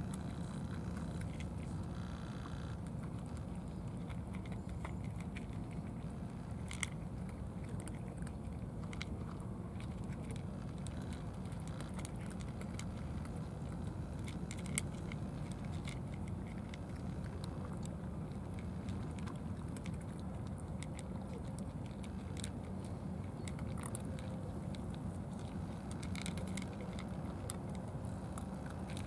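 Cats eating cat food from plastic trays, with scattered crunching clicks and taps, over a steady low background rumble.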